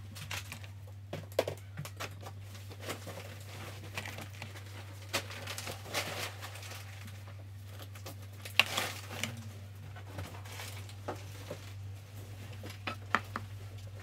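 Scattered small taps, clicks and rustles of hands at work on a watercolour painting, the brush, paper and palette being handled, with a few sharper taps. A steady low hum runs underneath.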